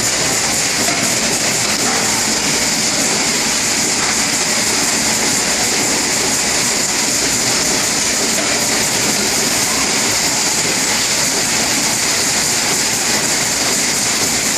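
Rotary pouch packaging machine running steadily, a continuous mechanical clatter under a steady hiss.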